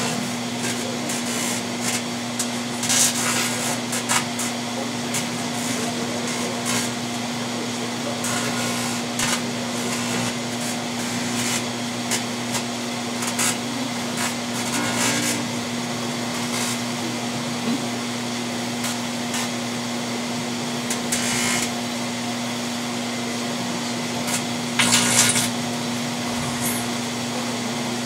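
Microwave oven running with a steady low hum, while the light bulb inside glows and arcs, giving short crackling, buzzing bursts every few seconds; the loudest burst comes about 25 seconds in.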